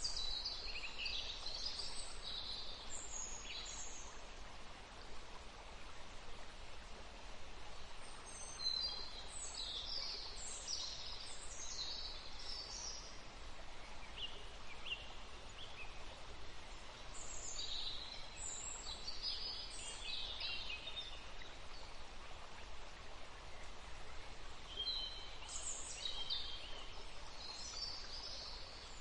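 Songbirds singing in separate bouts of quick, high chirps and trills every several seconds, over a steady background hiss.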